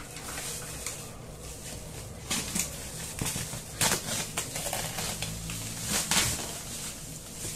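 Cardboard packaging of a boxed water cooler being handled: scattered rustles, scrapes and light knocks, over a steady low hum.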